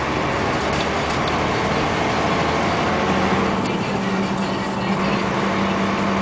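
Engine and road noise inside the cab of a UD Trucks Quon heavy truck under way, steady throughout, with a steady low hum joining about halfway through.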